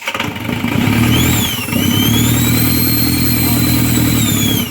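Isuzu 4JX1 four-cylinder common-rail turbodiesel freshly started and revved: a short blip about a second in, then a longer held rev that drops back near the end, with a whine that rises and falls with the revs. It is running again after a faulty rail pressure control valve had kept it from starting.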